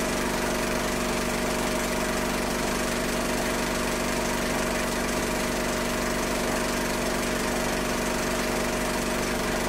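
Steady machine hum with a hiss over it, holding the same pitch and level throughout.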